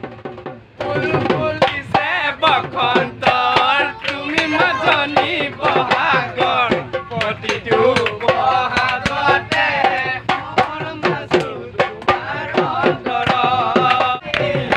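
Group singing a folk song to a dhol drum, beginning about a second in, with quick, steady drum strokes under the voices.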